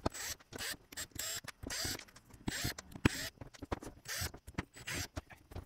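Hands taking apart a Hercules High Torque cordless impact wrench: its glass-filled nylon housing and metal parts click, knock and scrape, with short scratchy bursts throughout.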